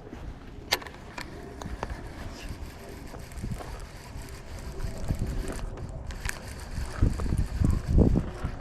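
Wind buffeting the microphone as a gusty low rumble, with a few sharp clicks and stronger gusts near the end.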